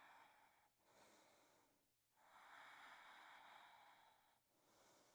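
Near silence, with faint slow breaths: a few long, soft swells of air noise with short pauses between them.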